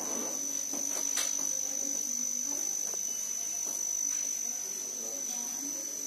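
A cricket trilling steadily on one high pitch, with a faint low murmur underneath.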